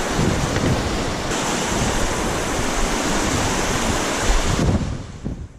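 Strong wind buffeting the microphone: a loud, steady rushing noise with a gusty low rumble, dying away near the end.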